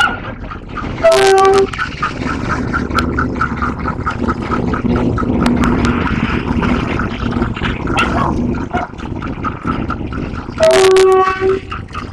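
GE U15C diesel locomotive passing close with its train of ex-JR East 203 series coaches, sounding two short horn blasts, one about a second in and another near the end, over the engine's drone and the rumble of the train. A regular ringing tick about four times a second runs underneath.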